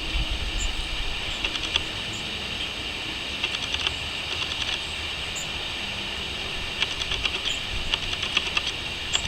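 Crickets chirping steadily, with several short runs of rapid chirp pulses, and a few faint high bird calls over a low rumble.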